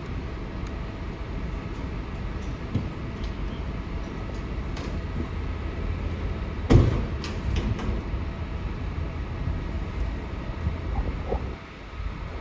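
Steady low rumble of construction machinery, broken about seven seconds in by one loud, sharp metallic knock, with a few lighter clicks around it.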